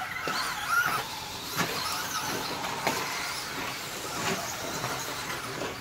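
Electric RC short-course trucks, Traxxas Slash 2WD class, racing on a dirt track: a high motor whine that rises and falls with the throttle, with a few sharp knocks.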